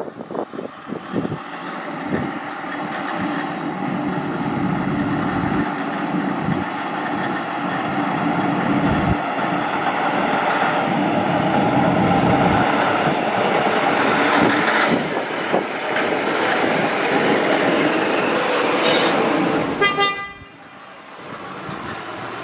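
Diesel locomotive drawing closer, its engine growing steadily louder, then a short blast of its horn about twenty seconds in, after which the sound drops away.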